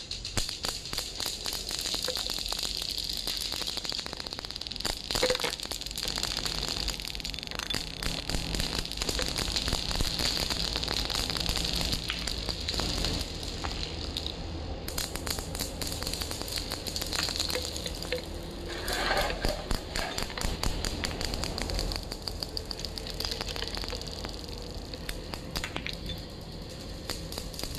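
Many glass marbles rolling across a polished stone floor with a steady rushing hiss. They click rapidly and densely against each other and against wooden blocks.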